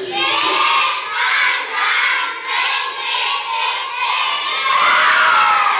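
A large group of children shouting together in a run of short unison shouts, rising into one long held cheer near the end before it cuts off.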